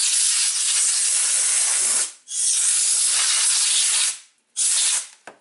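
Compressed-air blow gun hissing, blowing rust and debris off a fuel tank: a long blast that breaks off about two seconds in, a second long blast, then a short burst near the end.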